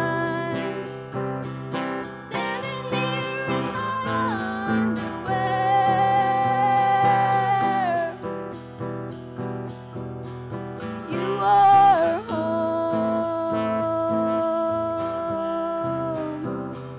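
Acoustic guitar strummed under a woman's singing voice holding long notes, with a swoop in pitch about twelve seconds in.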